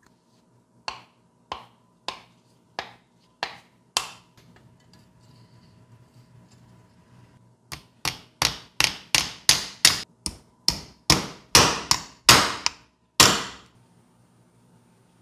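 Hammer driving a nail into the sickle's wooden handle to pin the blade in place, metal striking the nail head. Six spaced taps, a pause, then a quicker run of about a dozen blows that grow louder.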